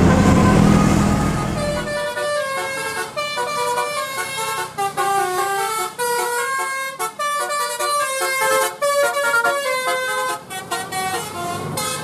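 Telolet horn on an Indonesian tour bus playing a quick tune of stepped, changing notes. For the first two seconds a bus passes close, its engine hum the loudest sound.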